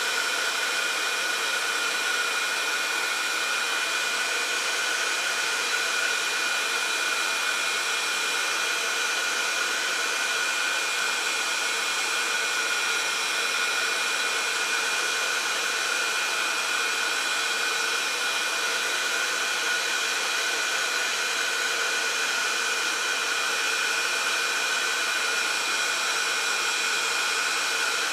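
Embossing heat gun running steadily, a rush of blown air with a steady whine on top, heating embossing powder on a stamped image until it melts.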